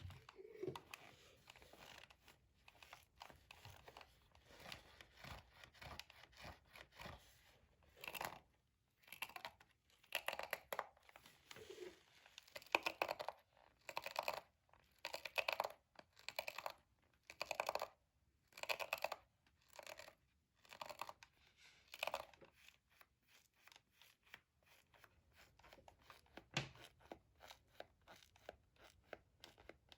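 Close-miked tapping, clicking and scratching on a gaming keyboard and mouse. Soft scattered clicks and taps are joined from about eight seconds in by a run of short scratchy strokes, roughly one a second, which are the loudest sounds. It eases back to light tapping near the end.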